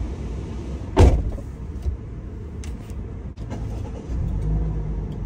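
Low steady rumble inside a car with the engine running, with one sharp thump about a second in and a few light clicks. The rumble grows a little louder about four seconds in.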